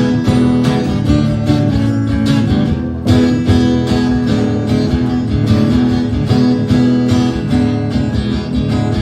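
Acoustic guitar strummed steadily, playing the instrumental intro of a folk song.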